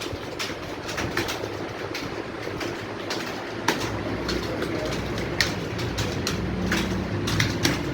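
Many computer keyboards being typed on at once: a dense, irregular clatter of key clicks, with a low hum rising under it about halfway through.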